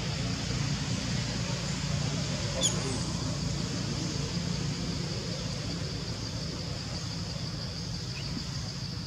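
Steady outdoor background of a constant high-pitched drone over a low rumble, with one short high squeak about two and a half seconds in.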